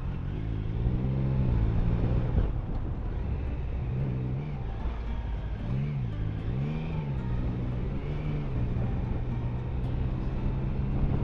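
Steady engine and road drone heard inside a moving car's cabin, with a faint sound whose pitch rises and falls a few times.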